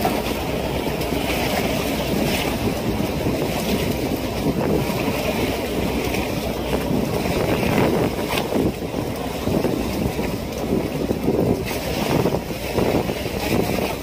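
Fishing boat at sea: a steady low rumble with wind buffeting the microphone and waves splashing against the hull.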